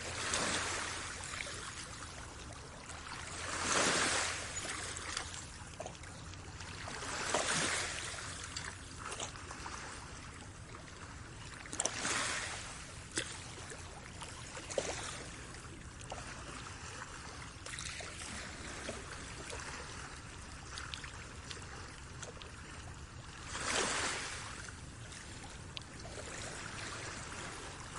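Water splashing and rushing along the hull of a moving boat, swelling louder every few seconds over a low steady rumble.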